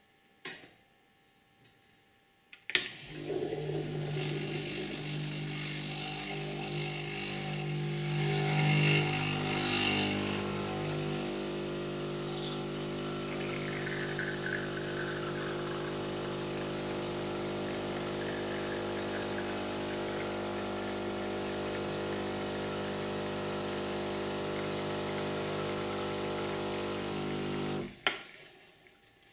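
Sage Dual Boiler BES920 espresso machine's vibratory pump humming as it brews an espresso shot with a 5-second preinfusion. It starts with a click about three seconds in, swells louder for a few seconds, then runs steadily until it cuts off with a click near the end. A light clink of the glass being set down comes just before.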